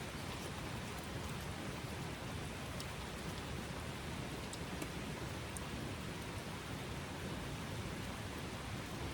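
Steady rain falling, a constant hiss with a few sharper drop ticks scattered through it.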